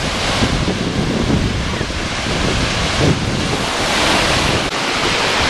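Lake Michigan surf: waves breaking and washing up in the shallows, steady throughout, with wind buffeting the microphone.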